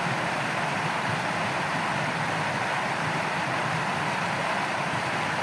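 Shallow stream water running steadily, an even rushing noise.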